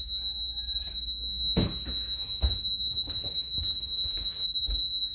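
Honeywell home security alarm sounding after a window sensor trips: one steady high-pitched tone, held without a break. Several short knocks and clicks sound over it.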